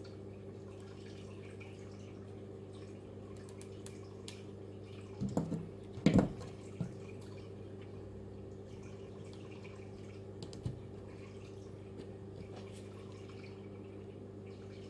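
Small knocks and clicks of thin plywood model parts being handled and pressed together. There is a short cluster about five seconds in, the loudest knock about a second later, and single smaller clicks after that, over a steady low hum.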